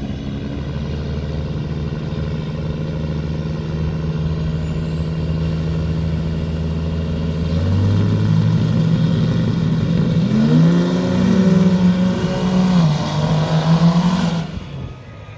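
Turbo-diesel pickup trucks on a dirt drag strip: engines running steadily at the line, then getting louder as they launch about 7 seconds in. The pitch rises and falls several times, with a faint high turbo whistle climbing above, and the sound drops off suddenly near the end.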